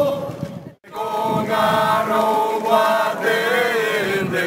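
A group of people singing together in unison, a slow chant-like song. It breaks off for a moment just under a second in, then the singing resumes.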